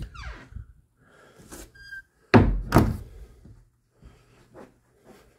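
Closet door: a short creak falling in pitch, then two heavy thuds about half a second apart, as the door is pushed shut.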